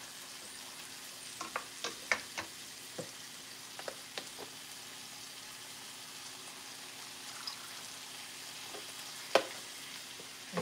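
Faint steady sizzling from pans of cream-and-tomato sauce and asparagus cooking on the stovetop, with a run of light taps of a spoon and tongs against the pans in the first few seconds and one sharper click near the end.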